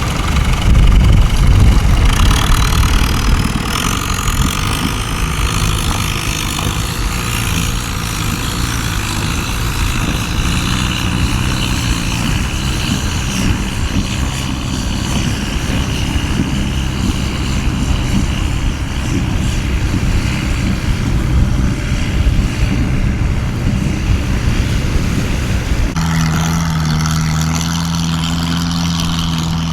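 A boat engine running with a steady low hum under a constant hiss. About four seconds before the end the sound changes abruptly, and the engine hum becomes steadier and clearer.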